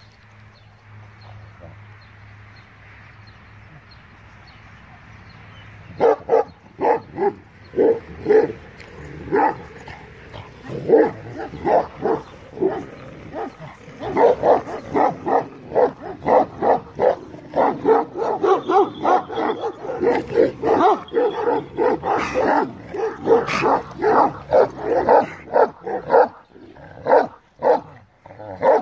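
Kangal shepherd dog barking in quick, repeated barks, about two to three a second. The barking starts about six seconds in and goes on almost without a break, pausing briefly near the end.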